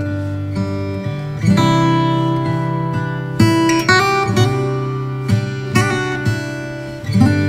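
Background music on acoustic guitar, plucked notes and chords ringing on one after another.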